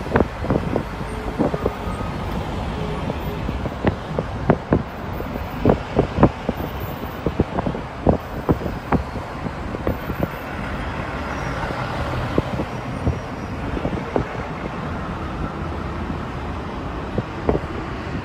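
Steady outdoor road-traffic rumble, with many short sharp knocks scattered through it.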